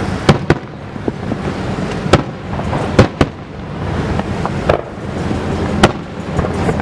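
Fireworks display shells bursting: about seven sharp bangs in irregular succession, the loudest about three seconds in, over steady low background noise.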